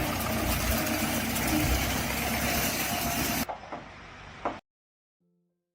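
An engine running with loud, rough noise around it, cutting off abruptly about three and a half seconds in. A quieter stretch ends with a click, then near silence with a few faint piano notes at the very end.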